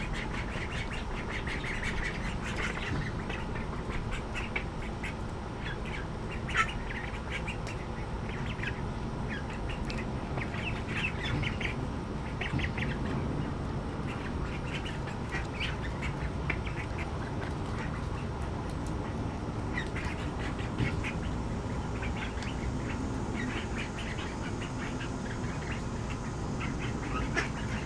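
A flock of young ducks calling on and off with short, high-pitched calls. There is one sharp, louder sound about six and a half seconds in.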